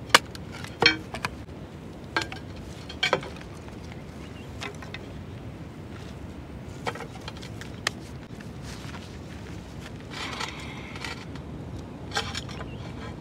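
Scattered light knocks and clicks, spaced a second or more apart, over a steady low background noise, with a brief rustling patch near the end.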